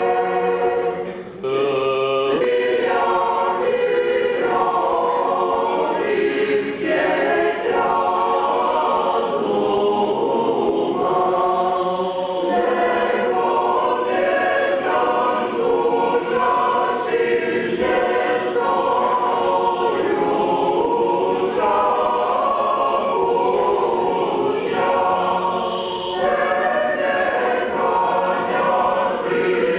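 Mixed church choir singing Orthodox liturgical chant unaccompanied, with a short break between phrases about a second in.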